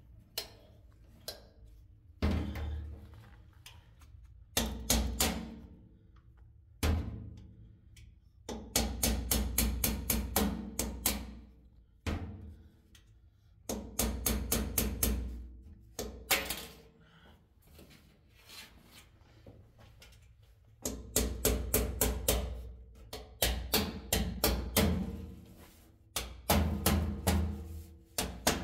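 Bursts of rapid, hard knocking, several strikes a second, broken by pauses of a second or more between bursts.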